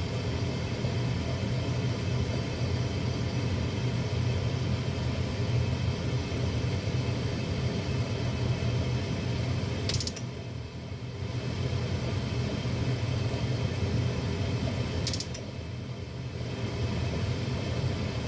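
Lennox Elite series furnace running a motor with a steady low hum and mechanical rattle, as the heater fails to start. A sharp click comes about ten seconds in and again about fifteen seconds in, each followed by a brief drop in the hum.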